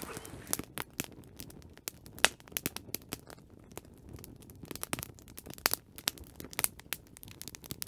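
Wood fire crackling, with irregular sharp pops and snaps, a few of them louder, over a low hiss.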